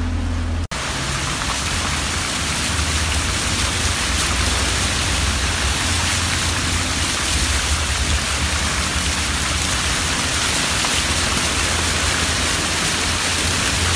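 Steady rushing, hissing wash of water with a low rumble underneath, as a car drives through a flooded street. It starts after a sudden cut under a second in.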